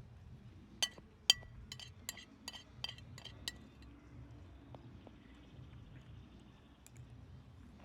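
Cutlery clinking against a dish while eating: a quick run of about eight light, ringing clinks over two or three seconds, then a few fainter ticks.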